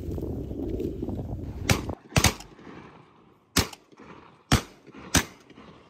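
Waterfowl hunters' shotguns firing five shots in quick succession over about three and a half seconds, starting a little under two seconds in. Wind rumbles on the microphone before the first shot.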